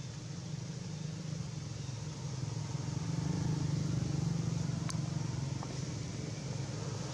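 Low hum of a motor vehicle's engine, growing louder about halfway through and then easing off, with one brief sharp click about five seconds in.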